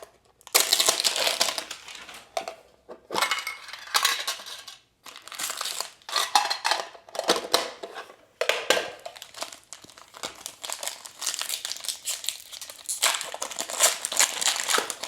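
Foil Pokémon booster pack wrappers crinkling and rustling as they are handled, in repeated bursts with short pauses between.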